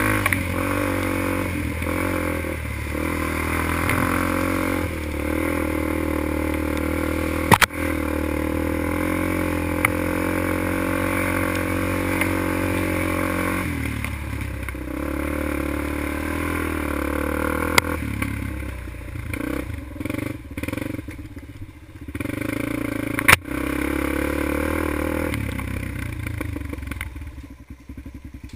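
A quad (ATV) engine running under throttle as it is ridden over a wet, bumpy dirt trail, with three sharp knocks from the machine hitting bumps. Around two-thirds of the way through the throttle goes on and off in short bursts, and near the end the engine drops back toward idle.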